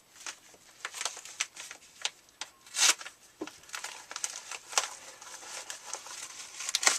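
A shipping package being handled and opened by hand: irregular crinkling and rustling of packing material with sharp crackles, loudest about three seconds in and again near the end.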